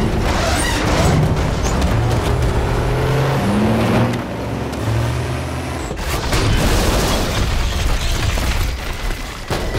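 Action-film soundtrack: a dramatic music score with sustained low notes under heavy booming crashes and breaking debris as a digger smashes through a concrete wall.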